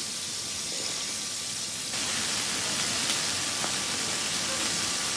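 Chicken-skin satay skewers and corn sizzling on a hot grill pan: a steady hiss that gets louder about two seconds in, with a faint click or two of tongs against the pan.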